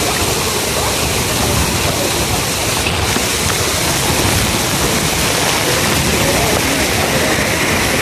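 Waterfall pouring down close at hand: a loud, steady rush of falling water.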